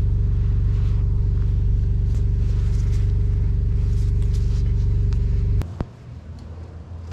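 A steady, loud, low machine hum that cuts off abruptly about five and a half seconds in.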